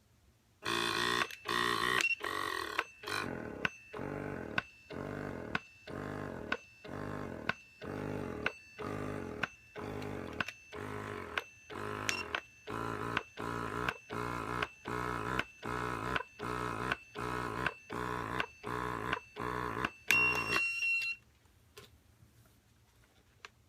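Electric breast pump running through its suction cycles, a pulsing motor sound repeating about once a second. It stops about 21 seconds in, just after a short beep.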